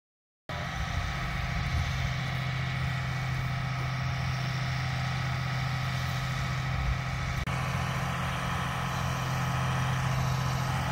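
Steady running noise of a vehicle heard from inside while driving: an even low engine hum under road noise, starting abruptly about half a second in.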